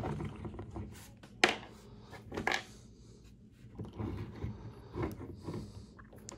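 Small plastic clicks and rubbing as an action figure's hands are pried off their wrist joints. A few sharp snaps stand out, the loudest about a second and a half in.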